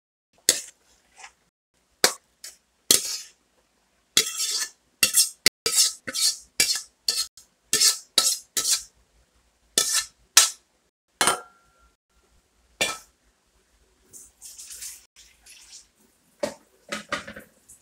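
Metal spatula scraping and clinking against a steel wok as stir-fried vegetables are scooped out: a run of short, sharp scrapes, densest in the middle, with one brief metallic ring.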